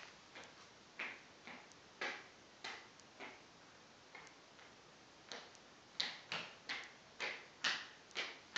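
A toddler's footsteps on a hard floor: a run of light taps, about two a second, that pause for a moment in the middle and then resume.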